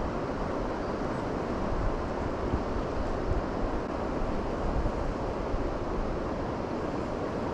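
Steady rushing of a swollen, fast-running river, with low rumbles of wind buffeting the microphone now and then.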